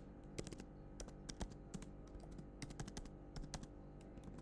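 Computer keyboard typing, faint: irregular key clicks, several a second, over a low steady hum.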